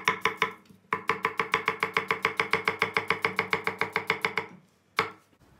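Kitchen knife chopping an onion on an end-grain wooden cutting board: a fast, even run of strokes, about eight a second, each with a short ringing tone from the board. There is a brief pause about half a second in, then the run stops about a second before the end, with one last knock.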